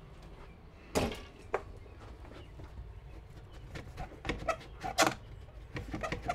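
A sharp knock about a second in and a lighter one soon after, then scattered taps and clicks as hands work the automatic vent opener's bracket on a wooden wall. Chickens start clucking near the end.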